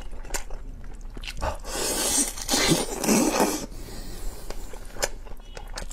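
Close-miked eating sounds: a person biting and chewing sauce-braised meat off a rib bone, with a wet, noisy stretch of gnawing and sucking about two to four seconds in and a few sharp clicks.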